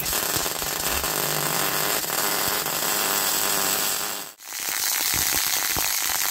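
Electric arc welder seam welding a new steel diff pan onto a Land Rover axle casing: a steady, loud crackle of the arc that stops briefly a little over four seconds in, then starts again for the next run of the weld.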